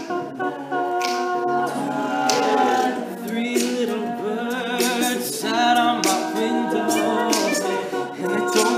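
Male a cappella group singing in close, sustained harmony, with sharp percussive hits cutting through every second or so.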